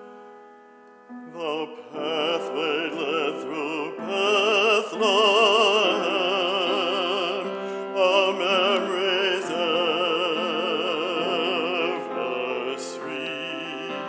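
A male solo singer in a classical, operatic style with a strong vibrato, accompanied by an upright piano. A few soft piano chords come first, and the voice enters about a second in.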